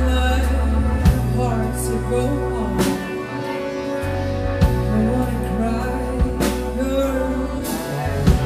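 A live band plays a slow soul ballad, a woman singing lead over keyboard, guitars, bass and drums, with drum and cymbal strokes standing out now and then.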